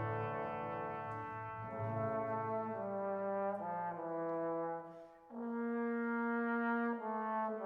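Background music: a slow melody of long held notes that step downward in pitch, breaking off briefly about five seconds in before new held notes start.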